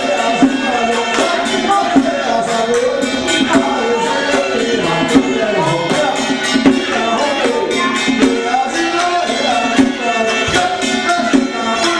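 Taiwanese temple ritual music: a wavering melody carried over dense, steady percussion.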